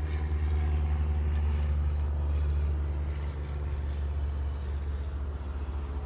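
Steady low drone of an engine running, easing off slightly toward the end.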